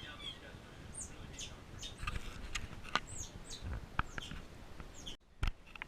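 Repeated short, high chirps, each falling in pitch, from a small animal or bird, mixed with a few sharp clicks. The sound cuts out briefly near the end.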